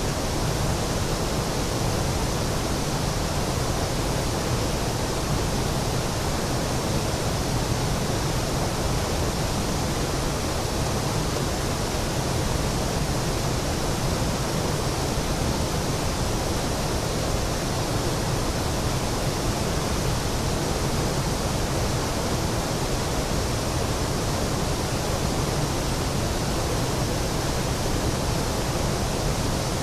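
A waterfall's steady rush of falling water, an even roar that does not change.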